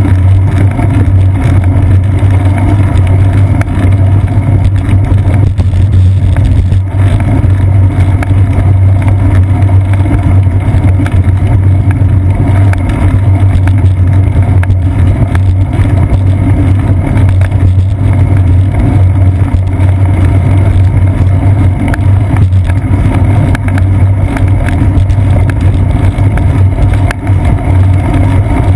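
Loud, steady low rumble of wind buffeting and road vibration picked up by a seat-post-mounted GoPro Hero 2 on a moving bicycle.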